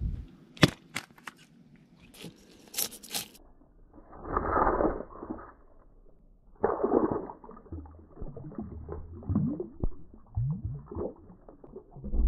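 Freshly caught tilapia being slammed onto the ground to kill them: a few sharp knocks, then two louder, longer scuffing impacts and some smaller scrapes.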